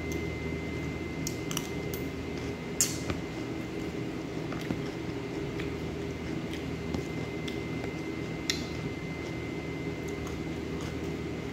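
A spoon clinking against a plate and a plastic salad container during a meal, a few scattered light clicks, the sharpest about three seconds in, over a steady low room hum.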